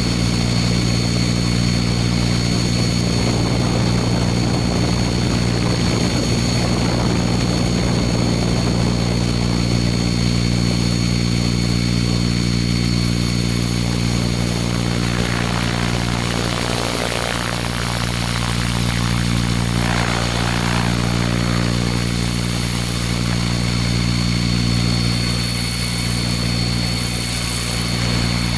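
Radio-controlled scale model helicopter running, heard from a camera on its own fuselage: a steady low rotor drone with a high, even whine over it, and a rush of air about halfway through.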